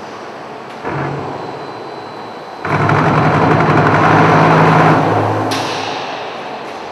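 Concrete block plant machinery running: a low steady motor hum under a clattering rattle. It swells loud about a third of the way in for a couple of seconds, then eases off, and a hiss starts shortly after.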